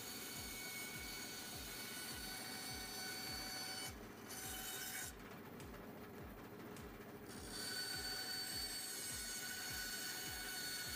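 Bandsaw cutting into a softwood block: a steady whine over the rasp of the blade, with a low pulse repeating a few times a second. The higher part of the sound drops away for a few seconds in the middle.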